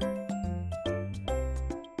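Background music with a steady beat, a bass line that changes note about every half second, and chiming higher notes.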